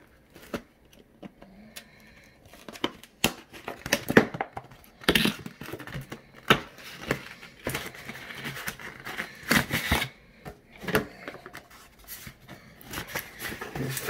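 Paper and cardboard packaging handled: irregular crinkling, rustling and sharp taps as a boxed product's paper manual and card inserts are pulled out and turned over.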